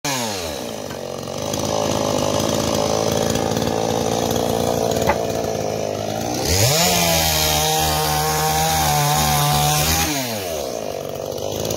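Small two-stroke engine, a chainsaw, running at idle, then revving up to full throttle about six and a half seconds in. It holds there for a few seconds, drops back, and revs up again near the end.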